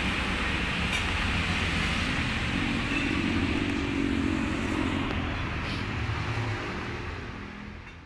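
A vehicle engine running steadily, with road traffic noise; it swells for a couple of seconds around the middle, as if a vehicle passes, then fades out near the end.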